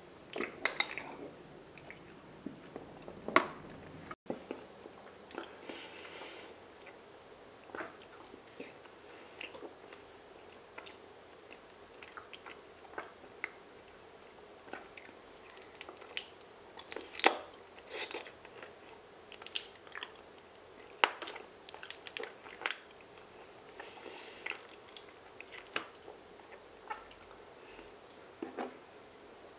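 Close-miked chewing of raw honeycomb: irregular wet, sticky mouth clicks and smacks as the wax comb is bitten and worked, with a few much louder clicks among them.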